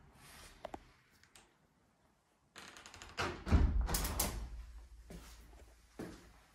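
Balcony door with a glass pane pushed shut: a low thud about three and a half seconds in, followed at once by rattling clicks of the handle and latch, then fading out.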